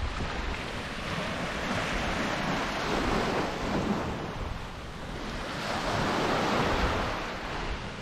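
Small waves breaking and washing up on a sandy beach, the surf rising and falling twice, with wind rumbling on the microphone.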